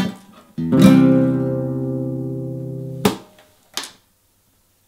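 Acoustic guitar strumming the closing chord of a fado, which rings and slowly fades for about two and a half seconds, followed by two short sharp sounds.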